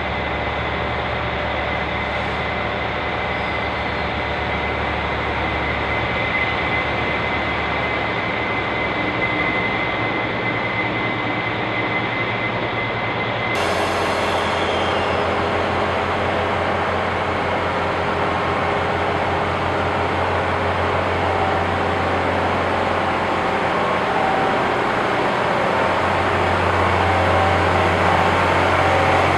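Diesel train engines running steadily with a low drone. After a cut about halfway through, a stainless-steel DR3100-series diesel multiple unit's engines run, and the drone grows louder near the end as the train starts to pull away.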